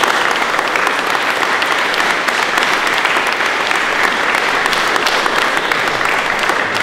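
A group of people applauding steadily, a dense patter of hand claps.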